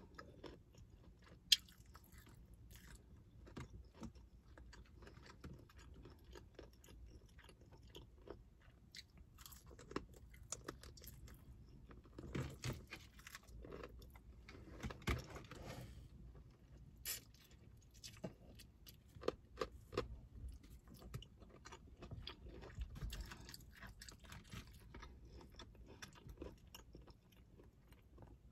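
Close-up chewing and crunching of crispy fried chicken wings: scattered crackles and wet mouth sounds, with one sharp click about a second and a half in.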